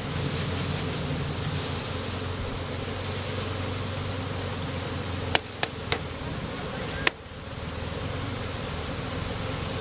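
A mass of honeybees buzzing steadily as a package of bees is shaken out into a hive, with three quick sharp knocks about five and a half seconds in and a fourth a second later, the package box being jarred to shake the last bees loose.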